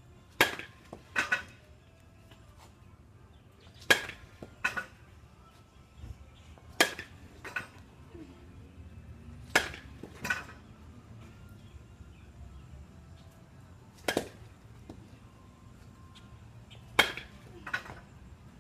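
A wooden baseball bat hitting tossed balls, six sharp cracks about three seconds apart. Most hits are followed within a second by a second, quieter knock.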